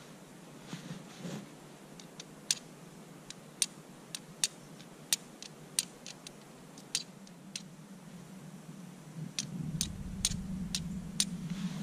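Sharp, irregular clicks from hand work at a small metal twig stove, about a dozen spread over several seconds, then a quicker run of five near the end. A low rumble comes in about nine seconds in.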